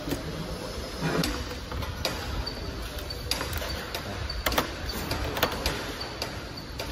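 Scattered sharp metallic clicks and clinks of a wrench and loose bolts and nuts on a steel machine top as the bolts are loosened, over a steady low hum of background noise.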